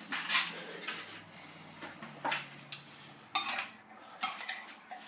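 A metal spoon scraping and clinking against a tin can and a pot as thick condensed tomato soup is spooned out. There are several separate short clinks and scrapes with quiet gaps between them.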